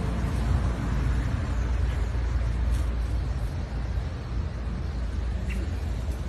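Steady low rumble of street traffic, an even noise with no distinct events.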